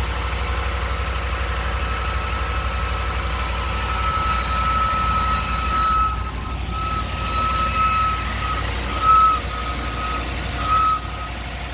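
2019 Ram 1500 engine idling on a cold start with a thin, high-pitched squeal from the accessory belt drive. The squeal holds steady at first, then breaks into separate chirps about halfway through, with two louder ones near the end. The owner traced it to a worn idler pulley and tensioner, whose replacement cured it.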